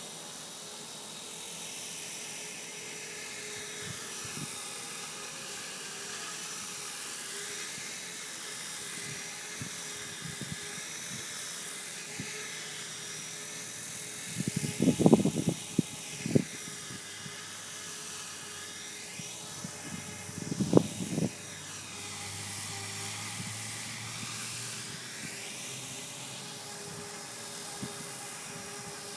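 E-flite Blade 450 electric RC helicopter hovering at a distance: a steady high whine from the motor and rotors, its pitch wavering up and down as it holds position. Two brief low rumbles stand out, about halfway through and again some six seconds later.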